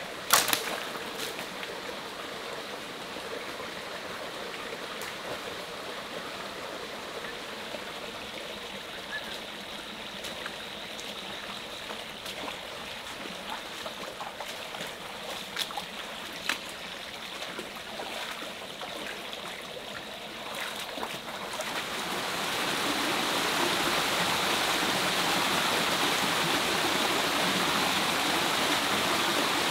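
Shallow forest stream running over rocks, with a few sharp knocks and splashes of footsteps wading through it, the loudest just after the start. About 22 s in, it gives way to the louder, steady rush of a small waterfall spilling over boulders.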